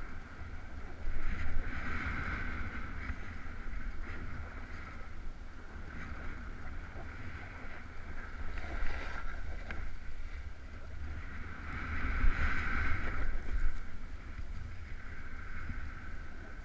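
Wind rushing and buffeting over the camera's microphone during a fast downhill run on snow, with the steady scraping hiss of riding over packed, choppy snow. It surges louder about a second in and again around twelve seconds in.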